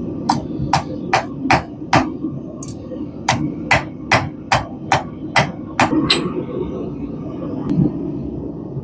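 Blacksmith's hand hammer striking steel hook stock on an anvil: about fourteen sharp blows in a steady rhythm of two to three a second, with one short pause, stopping about six seconds in.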